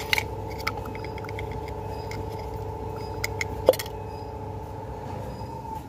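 Metal tool clicks and clinks as a spark plug is turned in with a socket and extension down a spark plug well, with a short run of light ticks a couple of seconds in and one sharper knock near the middle. A steady hum with two held tones runs underneath and stops at the very end.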